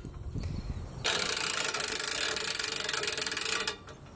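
Hand-cranked ratchet winch on a skinning hoist, clicking rapidly and evenly as it is cranked to lift a whitetail doe carcass. The clicking starts about a second in, runs for nearly three seconds and stops abruptly shortly before the end.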